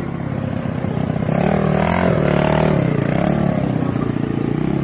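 Go-kart's Bajaj motorcycle engine revving as the kart pulls away, the pitch rising and falling a couple of times and loudest in the middle.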